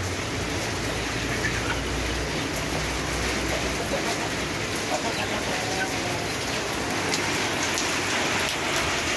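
Steady rain falling, an even hiss of drops on wet surfaces.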